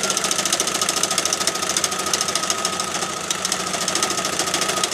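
Bernette serger (overlock machine) running at speed, stitching a seam: a fast, even mechanical clatter with a steady high whine.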